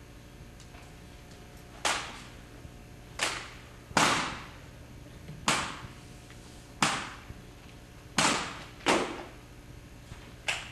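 Drill rifles being caught and slapped in hand during a precision rifle drill: eight sharp cracks at uneven intervals of about one to one and a half seconds, each with a short echo.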